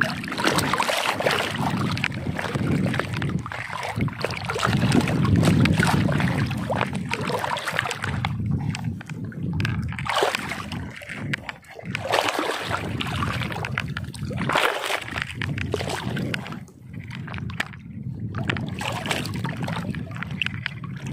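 Water sloshing and splashing, continuous and irregular.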